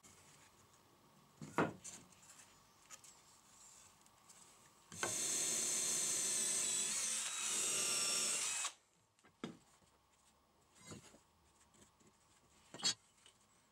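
A cordless drill drilling through a pine board, its motor running steadily for about three and a half seconds, then stopping suddenly. A few short knocks and taps come before and after it.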